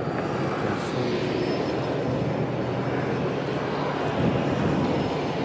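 Steady jet aircraft noise: an even rushing drone with a low, constant hum underneath.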